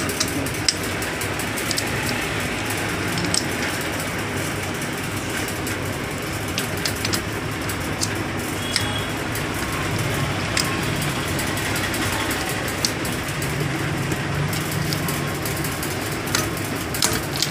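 Steady background hiss, with a few light metallic clicks and taps scattered through it as the Karizma R's two gearbox shafts, with their gear clusters, are handled and worked into place in the open crankcase.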